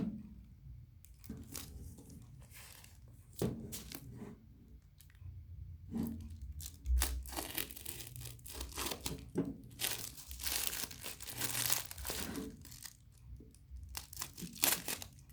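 A parcel's plastic wrapping being cut and torn open, with the plastic crinkling and a few knocks from handling. The tearing and rustling grows denser and louder about two-thirds of the way through.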